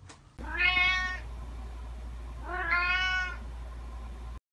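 A cat meowing twice, each meow under a second long and about two seconds apart, over a steady low hum.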